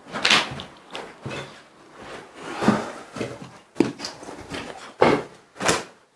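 Footsteps of people walking over a debris-strewn floor, irregular steps roughly one a second.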